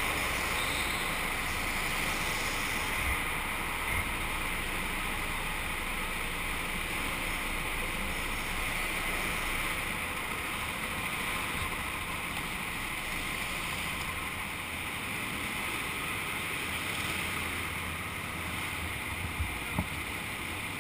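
Indoor go-kart running slowly on the cool-down lap, heard from a helmet camera as a steady hiss and rumble with no clear engine note, with a few light knocks near the end.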